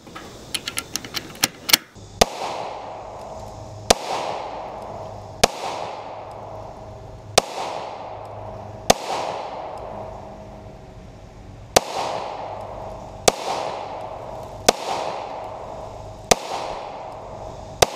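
FN Five-seveN pistol firing 5.7x28mm rounds: about ten single shots, one every second and a half to two seconds, each ringing out and fading. Before the first shot there is a quick run of small clicks.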